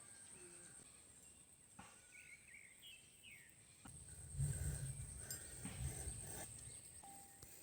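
Faint rural ambience: a steady high-pitched insect drone with a few brief bird chirps, then soft knocks and a low rumble in the second half.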